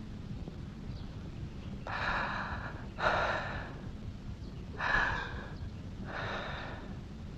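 A person breathing heavily in and out, slow deep breaths in pairs of inhale and exhale, the loudest about three and five seconds in, over a steady low hum.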